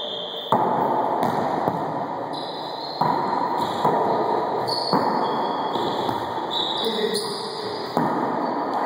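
Wallyball being played in an enclosed racquetball court: several sharp smacks of the rubber ball struck by hands and bouncing off the walls and floor, each echoing in the hard-walled court, a second or two apart.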